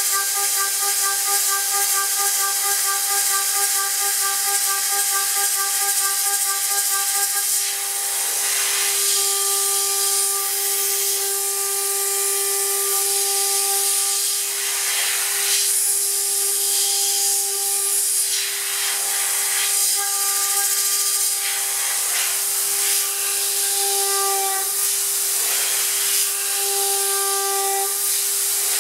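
CNC router spindle turning a 6 mm three-flute end mill at 24,000 rpm through 6060 aluminium: a steady high whine with overtones over a loud hiss from the air-mist coolant. The whine pulses during adaptive roughing and goes steady after about seven seconds, once a light contour finishing pass begins.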